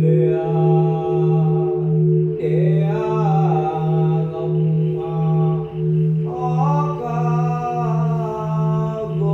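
A voice chanting in long, held, gliding notes, in three phrases, over a sustained bell or singing-bowl hum that wavers about twice a second.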